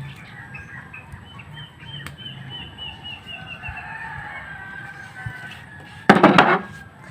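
A bird calls a quick run of small, high, repeated notes, about four a second, that fade out after a few seconds. About six seconds in comes one loud, brief rustling burst.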